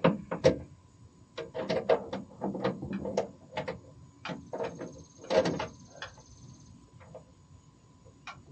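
Irregular clicks and knocks of a tailgate assist shock and its mount hardware being handled and worked back into place on a pickup's tailgate.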